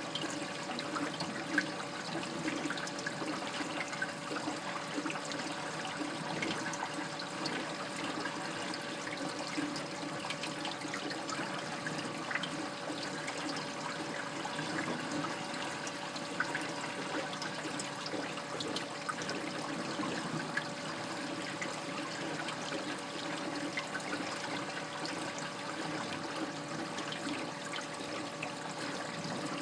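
Aquarium sump water running and trickling steadily, with small crackles and a faint steady hum underneath.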